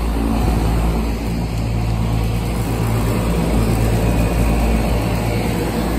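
Several Lennox split-system heat pump outdoor units running together in cooling mode, giving a steady low hum with fan noise over it.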